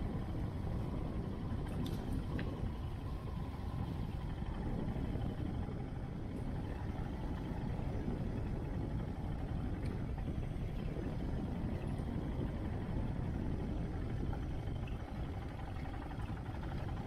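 Steady, deep running noise of a vehicle on the move: engine and road noise.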